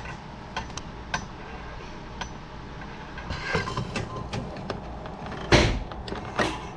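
Clicks and rattles from a 6th-generation Honda Civic hood release being worked through its new cable, then a loud thunk about five and a half seconds in and a smaller one just under a second later as the hood latch lets go.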